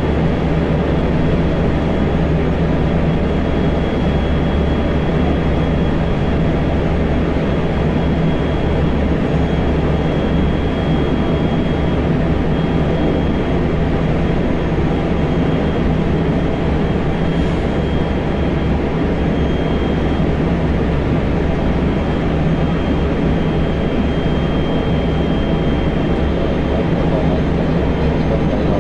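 JR Central 373 series electric train running steadily between stations, heard inside the passenger car: a constant rumble of wheels on rail, with a faint high tone that comes and goes.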